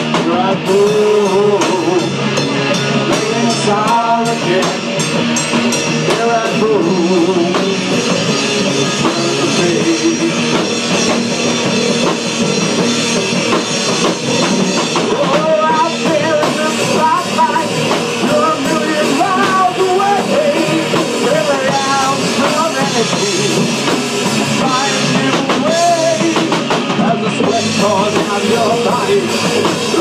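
Rock band playing an instrumental passage, with a drum kit and guitar under a wavering lead melody line.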